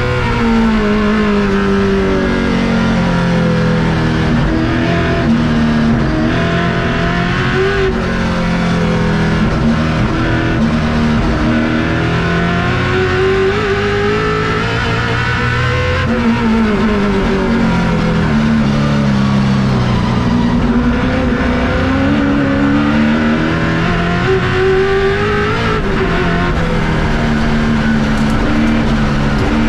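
Holden Torana touring car's racing engine heard from inside the cockpit at race pace, revs climbing through the gears and falling away under braking and downshifts, with a long drop in pitch about halfway through.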